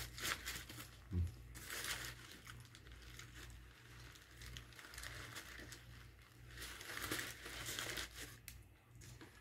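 Paper fast-food wrapper crinkling and rustling in irregular spells as it is handled, with a soft low thump about a second in.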